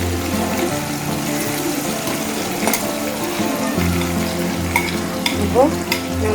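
Marinated chicken pieces sizzling as they fry in hot oil in a pan, a steady hiss with a few light clicks.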